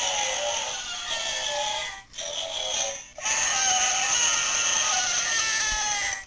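Animated Halloween grim reaper figure playing a tinny song through its small built-in speaker. It breaks off twice for a moment about two and three seconds in, then cuts off suddenly near the end.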